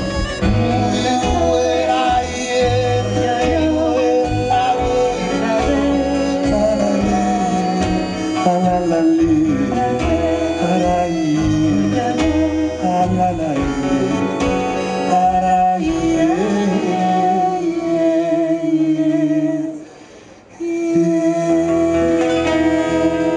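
Live acoustic band playing a song, with wordless singing over plucked strings and bowed strings. The music drops out for a moment about twenty seconds in, then comes back in.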